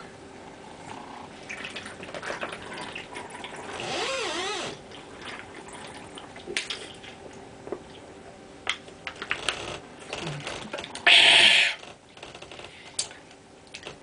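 A person chugging a 12-ounce can of beer: gulping and swallowing, with scattered clicks from the aluminium can. About eleven seconds in comes a short, loud burst of noise lasting under a second.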